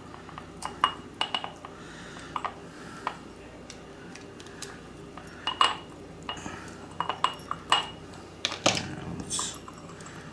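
Needle-nose pliers clicking and clinking against a small metal lamp socket and its terminal screws as stranded copper wire ends are bent around them, in scattered sharp taps, with one duller knock near the end.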